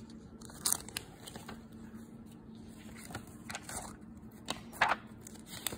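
Paper pages of a lab manual being handled and shifted: a few short rustles, the clearest about a second in and near the end, with small clicks between, over a faint steady hum.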